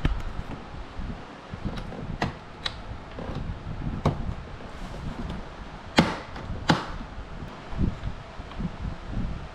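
Hands working inside a car door: scattered clicks and knocks of parts being handled, the two sharpest about six and seven seconds in.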